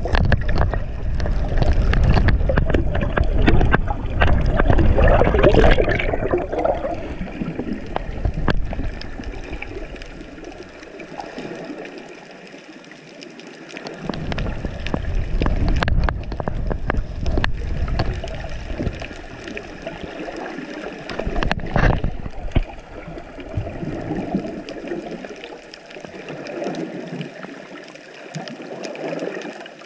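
Muffled water sound through a GoPro's waterproof housing held underwater: water rushing and gurgling around the case as it moves, with scattered clicks and crackles. It is loudest in the first six seconds or so, eases off in the middle, then swells again.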